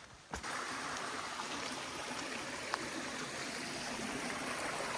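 Creek water running steadily, a constant rushing that sets in abruptly just after the start, with a few faint clicks over it.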